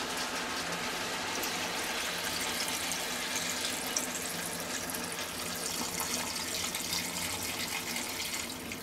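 Water poured in a steady stream from a plastic filter jug into a cast-iron Dutch oven of browned meat and vegetables, splashing onto the food.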